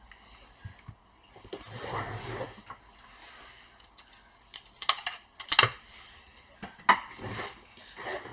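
Handling noise of small laptop parts during a display cable hook-up: a brief rustle about two seconds in, then a series of sharp clicks and light knocks of small hard parts.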